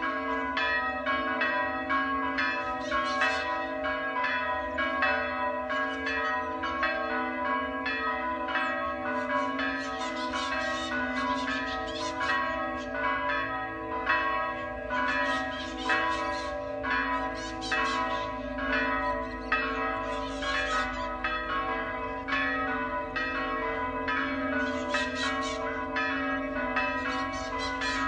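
Monastery church bells pealing, with strikes coming about twice a second over a steady, lingering hum of the bells' ringing tones.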